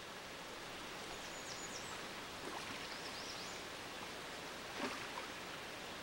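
Steady rushing of river water, with a few short bird chirps and one brief sharp knock or splash about five seconds in.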